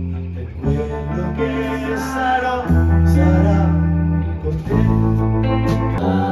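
Live band music: electric guitar chords over bass guitar and drums, the chords and bass notes held and changing every second or so.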